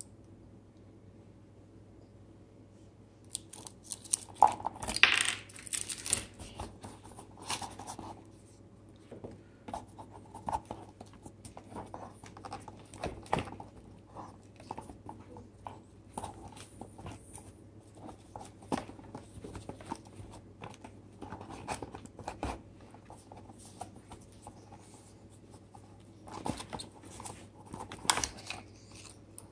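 Hands handling a watch presentation box and its padded inserts: irregular rustling, scraping and small clicks, starting about three seconds in, with the loudest rustle soon after.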